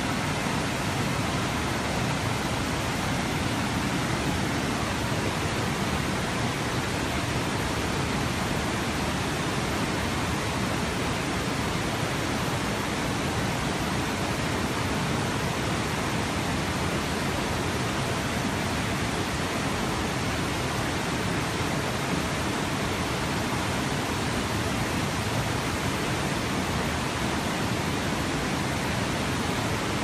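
River water rushing over a low concrete weir and churning in the rapids below: a steady, even rush that does not change.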